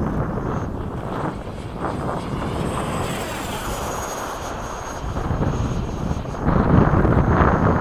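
Electric ducted fan of a Freewing 80mm F-5 RC jet making a high-speed pass, its high whine sliding down in pitch as it goes by a few seconds in. Wind rushes on the microphone, louder near the end.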